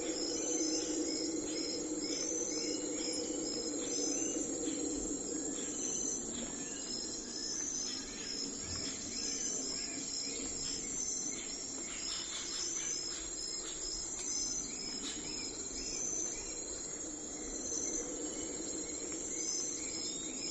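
A steady chorus of crickets chirping, a high continuous trill with short pulses repeating evenly, with scattered short bird calls. A low steady hum runs underneath.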